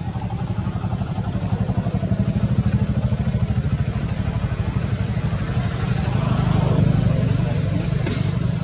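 A low, steady engine rumble with a fast even pulse, like a small motor such as a motorbike running, a little louder about two and seven seconds in.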